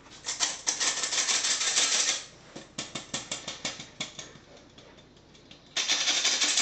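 Flour being sifted through a metal drum sieve, with a spoon scraping and tapping the mesh: a fast rasping ticking in two long spells, with scattered ticks between them.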